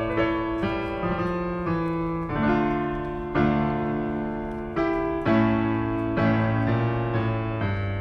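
Background piano music: a slow, gentle melody over chords, with a new note or chord struck about every half second to second and each one fading.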